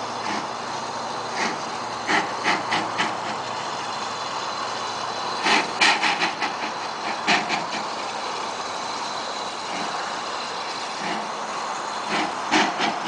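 Steam locomotive working slowly out of a tunnel: a steady hiss and rumble with uneven clusters of sharp exhaust chuffs, loudest about six seconds in and again near the end.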